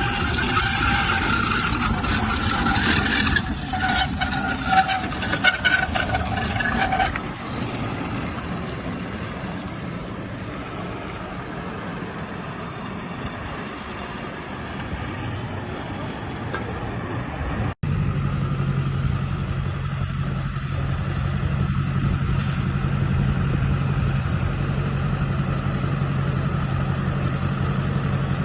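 A boat engine running. After a sudden cut about eighteen seconds in, a steady low engine drone holds.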